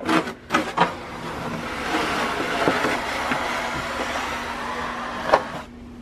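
Snow shovel blade scraping along a concrete sidewalk as it pushes snow, a steady scrape lasting about four seconds that ends with a single knock near the end.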